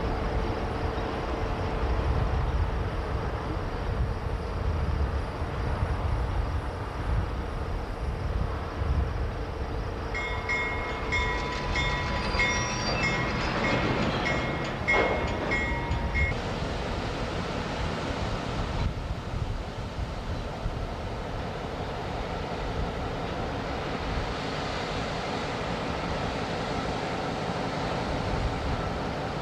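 Heavy steady rumble of rail cars rolling. About ten seconds in, a high tone repeats about twice a second for roughly six seconds, then stops.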